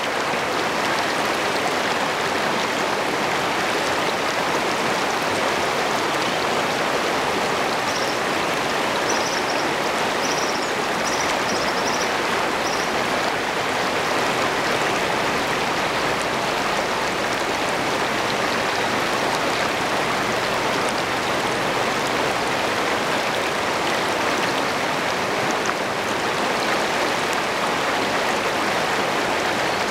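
Shallow river rushing over rocks in rapids, a steady wash of water close to the microphone.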